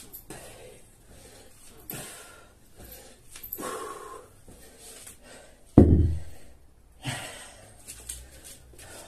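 Heavy gasping and panting breaths from exertion between sets of burpees and kettlebell swings, with one loud, sudden heavy thud about six seconds in that dies away over about a second.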